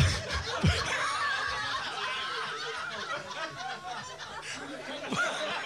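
Small club audience laughing and chuckling, many voices at once.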